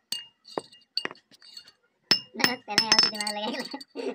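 Hammer tapping on wire laid across a hollow rectangular steel block used as an anvil: short metallic clinks that ring, scattered single taps at first, then a quicker run of taps about halfway through.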